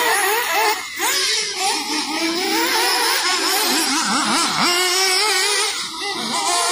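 Several nitro RC buggy engines racing at once, their high whine rising and falling as the drivers throttle on and off.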